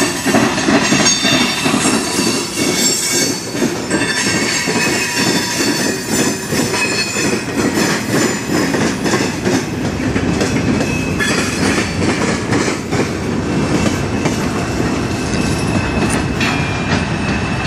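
Freight train's covered hopper cars rolling past close by: a steady rumble of steel wheels on rail, with repeated wheel clatter over rail joints and a high-pitched wheel squeal.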